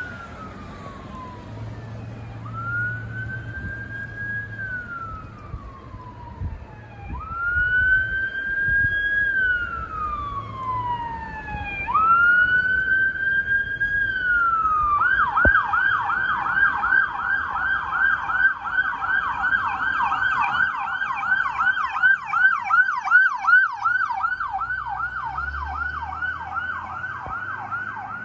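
Electronic siren on an approaching ambulance: a slow wail rising and falling every four to five seconds, switching about halfway through to a fast yelp of several sweeps a second. It grows louder as the ambulance comes close.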